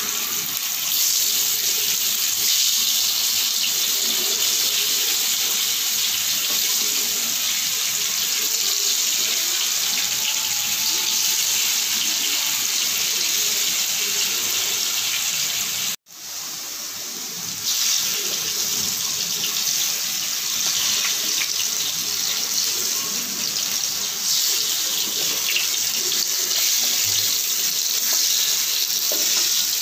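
Potato chunks frying in hot oil in a kadai: a steady sizzling hiss. It cuts out abruptly for a moment about halfway through, then comes back.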